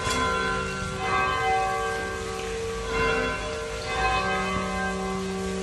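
Bells ringing, with several new strikes about a second apart and their tones ringing on over a steady held low tone.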